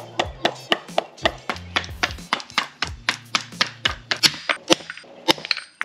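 Mallet blows on a socket at a Nissan 350Z rear differential's bushing mount: a steady run of sharp knocks, about four a second, with a little metallic ring.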